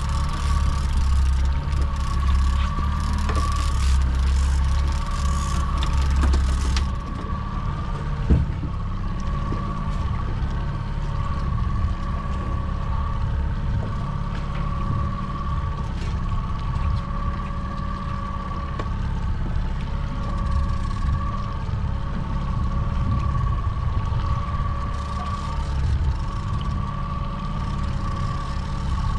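Boat engine running steadily, a low rumble with a steady whine over it and a hiss of wind and water. The hiss eases about seven seconds in, and a single knock comes about a second later.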